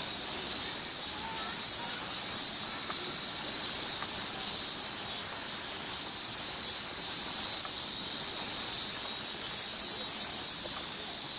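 A chorus of summer cicadas: a steady, high-pitched buzzing drone with a faint pulsing.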